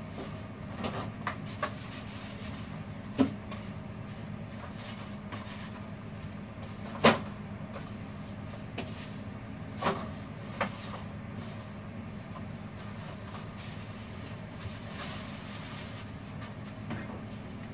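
Rummaging in an open refrigerator: a few short knocks and clatters as containers and shelves are moved, the loudest about seven seconds in, over a steady hum.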